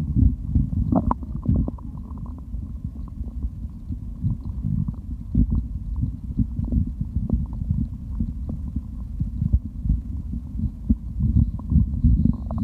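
Human stomach gurgling after drinking: a continuous low rumble with many short, irregular gurgles of liquid moving in the gut, the loudest about a second in.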